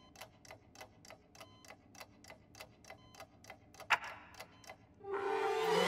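Cartoon wall clock ticking steadily, about four ticks a second, with one louder click about four seconds in. Near the end a pony's voice starts a long groan.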